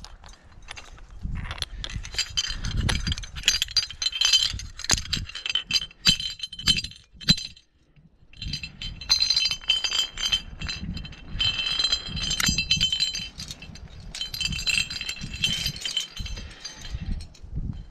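Aluminium carabiners and quickdraws on a climbing rack clinking and jangling as they are handled, in bursts with a brief pause about eight seconds in.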